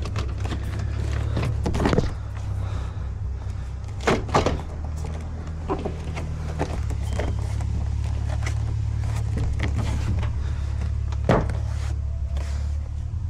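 Plastic door card being pressed onto a car door, with a few sharp knocks as its retaining clips are pushed home. Under it runs the steady low hum of the car's engine idling.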